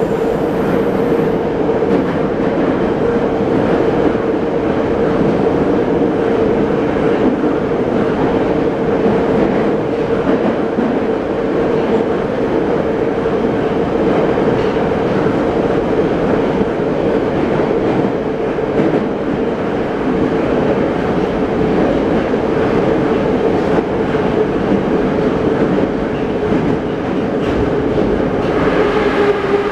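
Moscow Metro 81-717.5 subway car running at speed, heard from inside the car: a steady loud rumble and rush with a steady hum. Near the end a higher whine sets in and the hum begins to fall in pitch.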